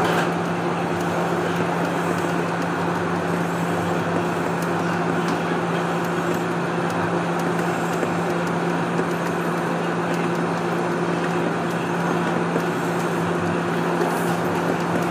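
Toronto Rocket subway train running through a tunnel, heard from inside the train: a steady rumble of wheels on rail with a constant low hum beneath it.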